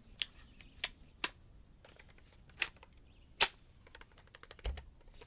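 Sharp, irregular clicks and clacks from handling a rifle and its magazine, about six in five seconds, with a dull low thump near the end.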